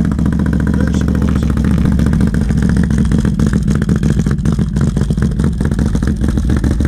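2018 Can-Am Renegade XMR 1000R ATV's Rotax V-twin idling cold through an SLG Sniper Series slip-on exhaust that exits straight out the side. The exhaust note is loud, steady and pulsing.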